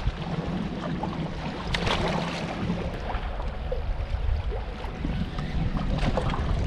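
Wind rumbling on the microphone over water lapping around a small boat, with a faint low hum that stops about three seconds in and a few light clicks.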